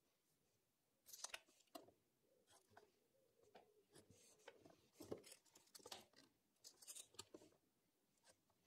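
Faint pencil scratching as lines are marked on a timber 4x2, in a string of short strokes, with small knocks as a tape measure and steel square are handled on the wood.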